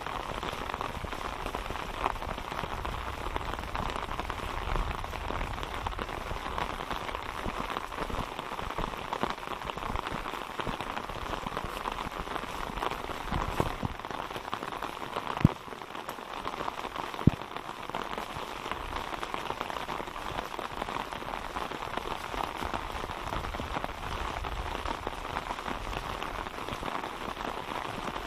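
Steady rain falling, a dense patter of drops on wet ground and surfaces, with two sharp clicks about two seconds apart a little past the middle.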